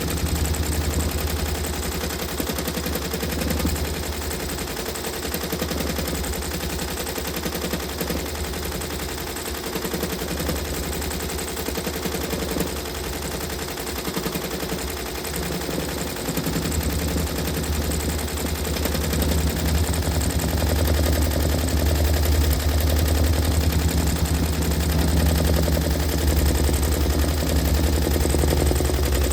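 Embroidery machine stitching at speed: a fast, even run of needle strokes over a low motor hum, growing louder a little past the middle.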